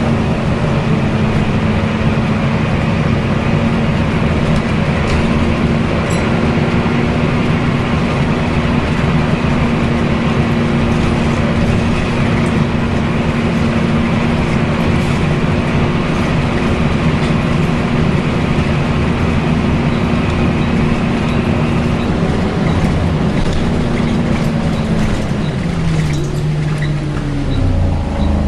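Volvo B10BLE bus's engine and cooling fan heard from on board while under way: a loud, steady whining drone, the fan's 'hoover' sound. Near the end the pitch falls away as the revs drop.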